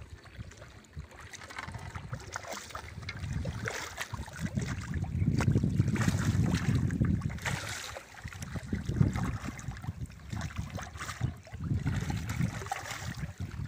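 Water lapping and splashing at the shoreline, with gusts of wind rumbling on the phone's microphone that swell about five seconds in and again near the end.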